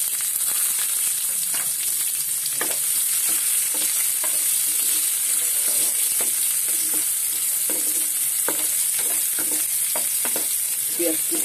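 Sliced onions sizzling in hot oil in a frying pan, a steady hiss from the moment they go in. A spatula stirring them scrapes and clicks against the pan now and then.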